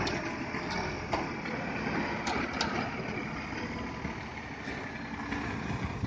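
Hino concrete mixer truck's diesel engine running steadily at low revs as the truck edges forward, with a few light clicks over the rumble.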